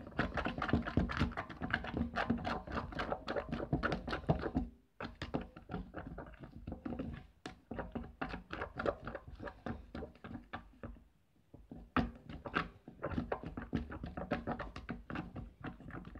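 Pencil stirring PVA glue and shaving gel in a plastic tub: quick, irregular tapping and clicking against the plastic as the mix foams up, with two short pauses, about five and eleven seconds in.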